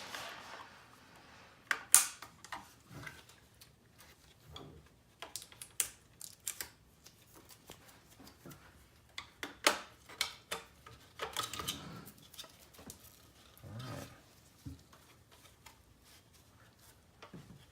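Irregular clicks, taps and knocks of a car navigation head unit's plastic and metal housing being handled and pulled at during disassembly, with sharp knocks about two and ten seconds in.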